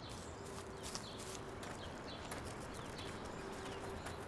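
Faint outdoor background: a low hiss with scattered soft ticks, and twice a faint steady hum lasting about a second.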